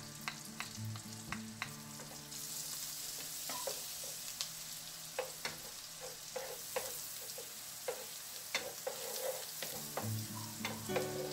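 Minced garlic sizzling in melted butter in a hot pan, with a bamboo spatula scraping and tapping against the pan as it is stirred. The sizzle grows louder about two seconds in.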